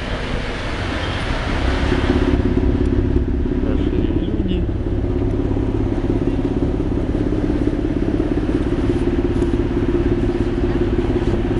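The Dorozhnik car ferry's engine running, a steady low drone that gets louder about two seconds in and then holds even.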